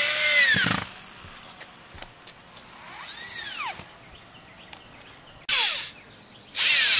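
Circular saw run in short bursts, four times, its whine rising and then falling in pitch within under a second each time.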